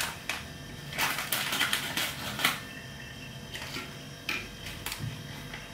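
Plastic biscuit packet crinkling as chocolate biscuits are pulled out, with a few light clicks and taps of biscuits being set into a metal dish; the crinkling is densest a second or two in.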